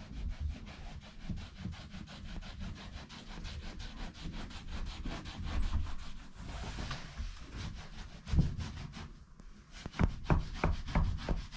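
Rapid, rhythmic rubbing strokes on wood, several a second: a cloth working wax into oak boarding, with a few harder strokes near the end.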